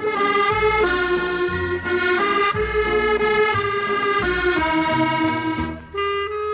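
Accordion music: a melody of held, reedy notes over a bass line, with a brief break near the end.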